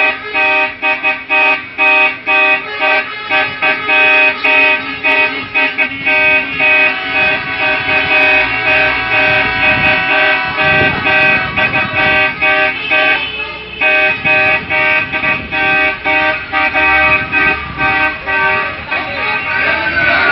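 Vehicle horns honking over and over in rapid, choppy blasts, several tones at once, with engine rumble underneath as trucks drive past. Near the end a horn tone slides downward.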